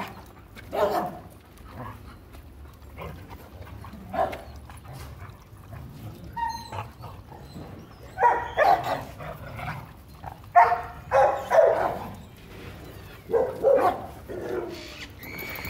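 Dogs barking in short, separate barks, sparse at first and coming in quicker clusters from about eight seconds in.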